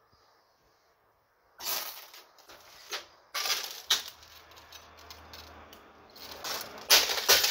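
Broken window glass crunching and clinking underfoot in irregular bursts, starting about a second and a half in and loudest near the end.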